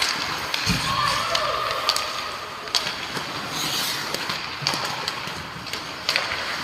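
Ice hockey play on a rink: skates scraping the ice, sharp clacks of sticks and puck several times, and faint distant shouts.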